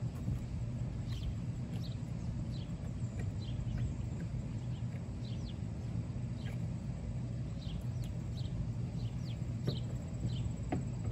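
Steady low hum with short, high bird chirps scattered throughout, and a couple of light clicks near the end.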